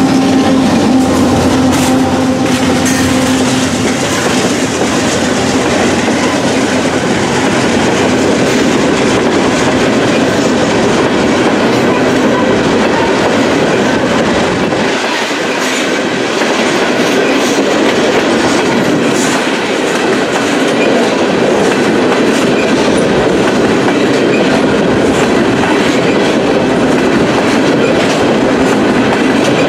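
Freight train of tank cars rolling past close by: a steady loud rumble of wheels on rail with clickety-clack of wheels over rail joints. A diesel locomotive hum fades away in the first few seconds as the locomotives move off.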